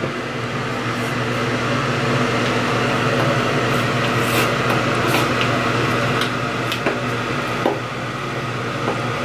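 Tap water running steadily from a bathroom sink faucet, with a few light clicks of items handled at the sink.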